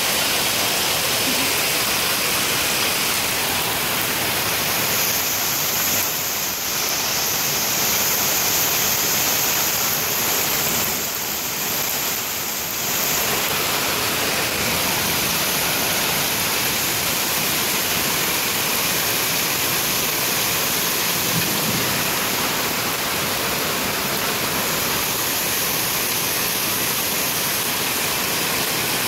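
Heavy downpour of rain mixed with small hail, falling steadily as an even hiss through the pine woods and onto the gravel.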